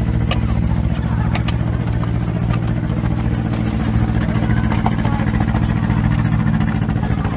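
A motor running steadily with a low hum, and a few light clicks over it.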